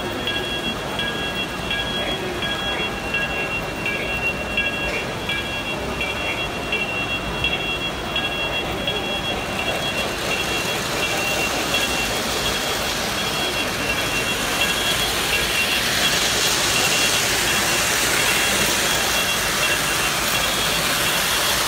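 Remote-controlled model Christmas train running on its metal track, the motor and wheels whirring and rattling, growing louder from about ten seconds in as it comes close by. Steady high-pitched tones sound in the first few seconds, and crowd chatter runs underneath.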